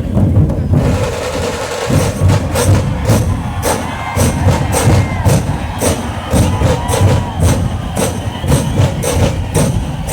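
Dhol-tasha ensemble playing: big dhol drums beat a heavy low rhythm, and about two seconds in sharp, cracking tasha strokes join at roughly two a second.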